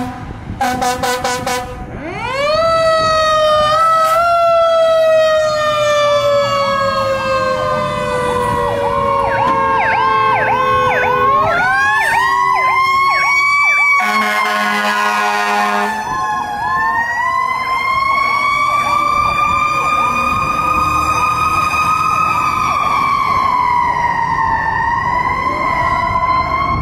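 Fire truck sirens on a call: a wailing siren rises and slowly falls in pitch, with an electronic siren's fast yelp layered over it. An air horn sounds in short pulses near the start and in one blast of about two seconds midway.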